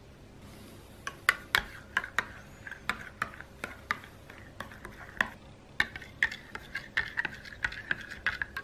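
Metal spoon clinking and scraping against the sides of a plastic measuring cup while stirring matcha powder into warm milk. The quick, irregular clinks begin about a second in and keep on, several a second.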